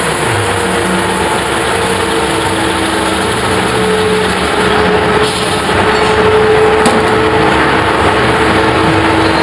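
Large metal-spinning lathe running, with a big sheet-metal dish turning on its spindle: a steady machine noise carrying several hum tones. It gets somewhat louder about halfway through.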